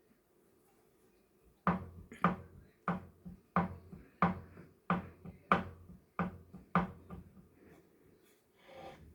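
Wahoo Kickr Bike indoor smart bike knocking: a sharp knock repeating about every two-thirds of a second, with fainter knocks between, starting about a second and a half in and stopping after about nine knocks. The knock is an unwanted noise from the bike.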